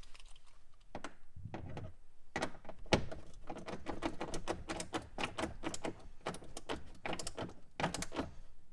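Hand driver tightening the cargo net's hook bolts into the boot trim, clicking rapidly in quick runs from a few seconds in, with a few softer knocks before.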